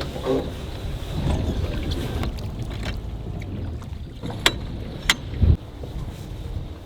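Wind buffeting the microphone, a steady low rumble. Three sharp knocks or clicks come in quick succession a little past the middle.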